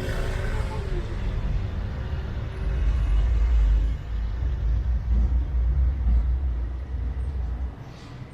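Heritage tram running along its tracks: a steady low rumble that grows louder a few seconds in and falls away sharply near the end.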